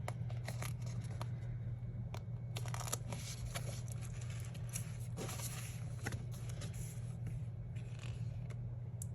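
Paper being handled: sticker sheets and book pages rustling and sliding, with scattered light clicks and taps, over a steady low hum.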